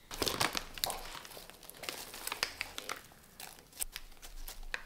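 Caramel popcorn crackling and crinkling as handfuls are scattered and pressed by hand onto a cream-topped pie: a dense run of dry crackles that thins to a few separate ones near the end.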